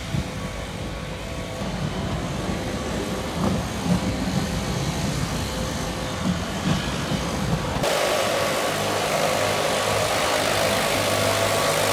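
A tram passing on the grassed track with a low rumble and a few louder bumps. About 8 s in, the sound changes to backpack leaf blowers running steadily, a rushing hiss with an engine buzz, blowing fallen leaves off the tram rails.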